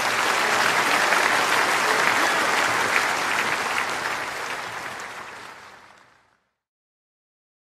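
Large crowd applauding at the end of a live worship song, the applause fading away and cutting off about six seconds in.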